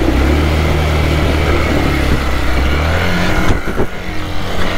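Hero XPulse 200's single-cylinder engine running under load as the motorcycle crosses a rocky stream. Its pitch rises about three seconds in, then briefly dips with a couple of knocks before it settles back to a steady run.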